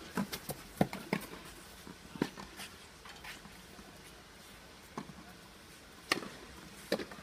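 Tennis ball being struck by rackets and bouncing in a short rally: a few sharp pops in the first couple of seconds, then a quieter spell with a few scattered single knocks.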